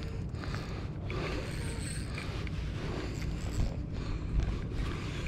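Daiwa BG spinning reel working against a freshly hooked bluefish, its drag set loose and slipping as the fish takes line, a steady mechanical whirr with fine clicking, over low wind rumble on the microphone.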